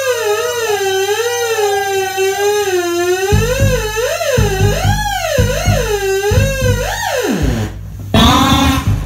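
Live experimental electronic music: a single wavering, gliding theremin-like tone, joined about a third of the way in by low irregular pulses. Near the end the tone slides steeply down and gives way to loud harsh noise.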